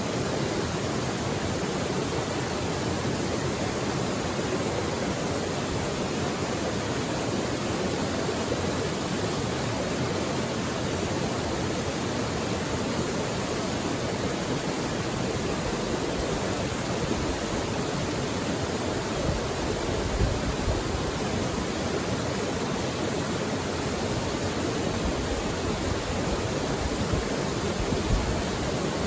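Mountain creek flowing over rocks: a steady, even rush of water, with a few soft low thumps from the current about two-thirds of the way in and near the end.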